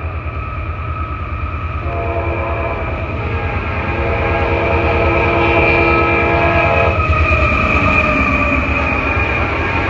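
A CSX diesel freight locomotive blows its multi-note air horn as it approaches at speed over a steady low rumble that grows louder. The horn is held for several seconds, and as the locomotive passes, the chord drops a little in pitch.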